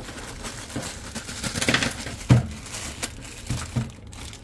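Clear plastic bag crinkling and rustling as a bundle of power cables is handled and pulled out of it, with a short dull knock about two seconds in.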